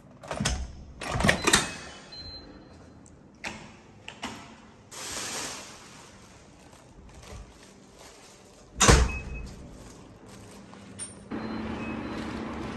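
Front-door digital door lock and handle operated, with sharp latch clicks and a brief high beep as the door opens, followed by further knocks and a loud thump about nine seconds in. Near the end a steady low hum comes in.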